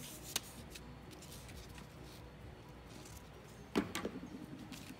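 Faint rustling and light taps of paper as fingers press glued paper strips flat onto a paper weaving, with a sharp click about half a second in and a louder knock near four seconds, followed by a brief low hum.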